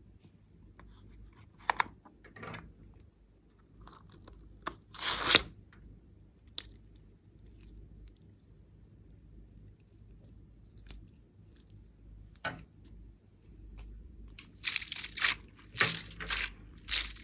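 Slime-making materials being handled: scattered crunchy crackles, a longer hissy rustle about five seconds in, and a quick run of crunchy crackles near the end.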